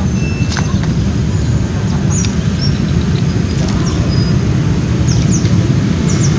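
A steady low rumble of outdoor background noise, with several short, high chirps from small birds over it.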